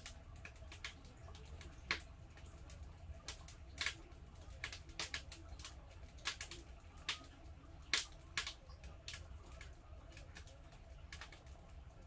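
Firewood crackling and popping in a wood-burning stove: irregular sharp pops, one to three a second, over a low steady hum.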